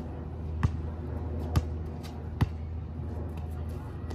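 A basketball dribbled on an outdoor hard court: three separate bounces, roughly a second apart, over a steady low hum.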